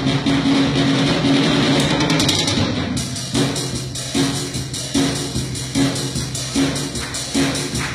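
Acoustic drum kit played solo: a dense, rapid run of strikes for about three seconds, then a slower, even pattern of accented hits a little under a second apart, each drum ringing on after the hit.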